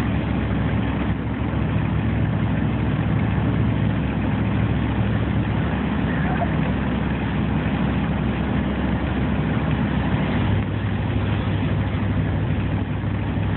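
Steady engine hum and road noise inside the cabin of a four-wheel-drive vehicle driving on snowy roads.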